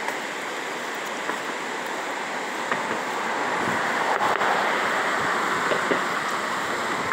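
Steady rushing of fast-flowing river water, growing slightly louder about halfway through.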